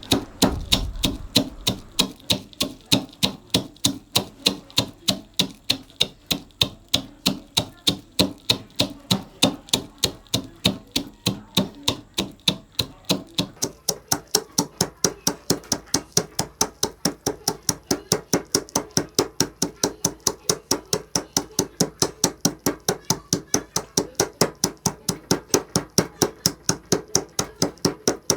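Pestle pounding peanuts in a small mortar, a steady rhythm of about three strikes a second, breaking the nuts down toward a coarse powder.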